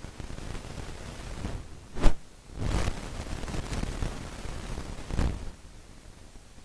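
Rustling and handling noise close to a clip-on microphone, with a sharp knock about two seconds in, the loudest sound, and further rustles about a second later and near five seconds.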